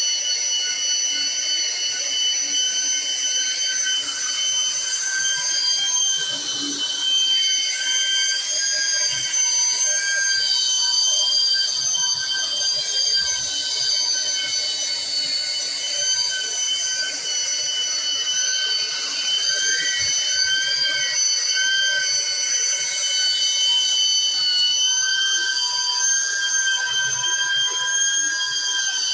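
Handheld electric belt sander running steadily while sanding an old wooden plank, giving a loud, high, steady whine.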